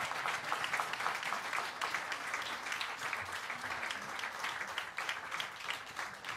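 Audience applauding: many hands clapping together, easing off slightly toward the end.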